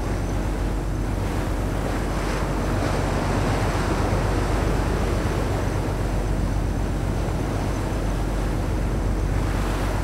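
Steady wash of open-sea waves with wind buffeting the microphone, over a steady low hum.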